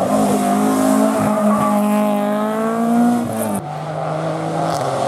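Rally car engine revving hard under acceleration, its note climbing and held high, then cutting abruptly about three and a half seconds in as the driver lifts off, leaving a lower steady note. A short sharp crack comes near the end.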